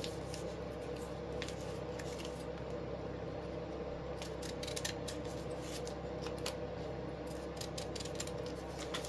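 Scissors snipping and handling poly ribbon: a scattering of faint, irregular clicks over a steady low hum.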